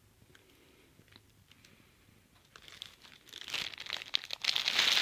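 Faint for the first couple of seconds, then packaging crinkling and rustling with sharp crackles, growing louder toward the end.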